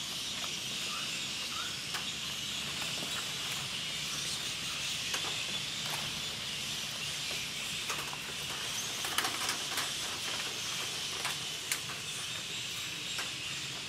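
Steady high-pitched insect drone, with scattered light clicks and taps as puris are handled on stainless steel plates.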